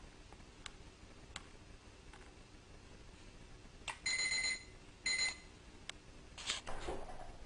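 Electronic doorbell sounding two short, high steady beeps about a second apart, each just after a click of its button.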